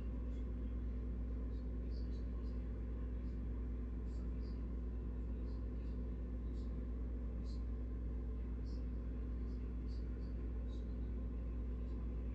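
A steady low hum, with faint, very short high chirps or ticks scattered through it, a few each second.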